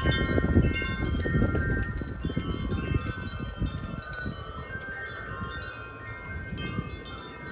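Wind chimes clanging wildly in strong storm gusts, many overlapping metallic tones. A low gusty wind rumble underneath eases after the first couple of seconds.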